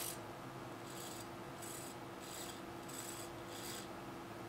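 A hobby servo plays back a hand-recorded walking motion. Its motor and gears buzz faintly in about five short bursts, roughly two-thirds of a second apart, starting about a second in.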